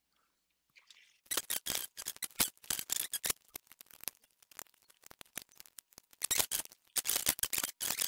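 Sheet-metal cover of a computer power supply being pried and pushed back into place by hand: irregular metal clicks, scrapes and rattles, starting about a second in.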